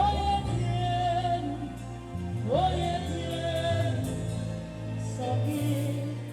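Gospel music: a lead melody slides up into long held notes with vibrato, three times, over a steady bass line.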